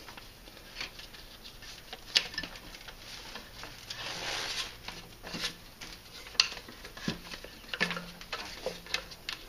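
Fibre rush being pulled and wrapped around wooden chair rails: scattered light rustles, scrapes and clicks of the twisted-paper cord against wood and hands, with a longer swish about four seconds in as a strand is drawn through.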